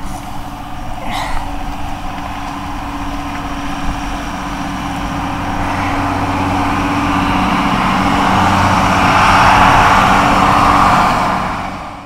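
Road vehicle noise: a steady engine hum throughout, and a vehicle passing that grows louder to a peak about ten seconds in, then fades away just before the end.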